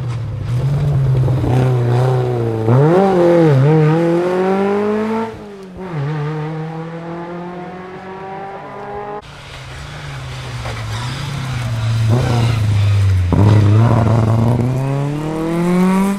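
Rally car engines at full throttle on a special stage, the pitch climbing through the gears with quick wobbles on and off the throttle and dropping sharply about five seconds in. After an abrupt change about nine seconds in, an engine climbs again steadily through the gears to the end.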